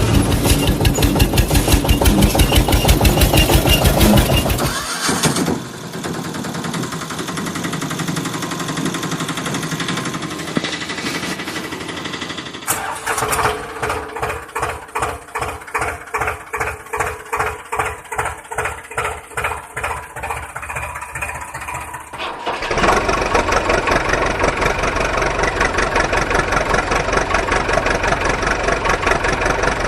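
Vehicle engine sounds in changing sections: a loud fast rattling run, then a quieter steady running stretch, then slow chugging at about two beats a second, and finally a loud steady run.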